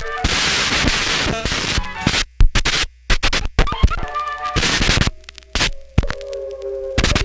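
Experimental turntable noise improvisation: records and a mixer worked live into a dense hiss for the first two seconds, chopped by abrupt cuts to silence and sharp clicks, then held, slightly wavering tones in the second half.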